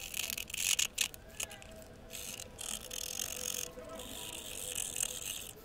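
Pointed wooden pick scraping grime and corrosion off the face of a dirty Kennedy half dollar, in a series of short scratchy strokes with brief pauses between them, the last stroke the longest.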